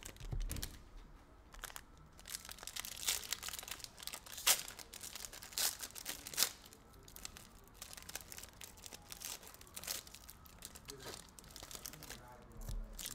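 Foil trading-card pack wrappers being torn open and crinkled by hand, in irregular crackles and rips.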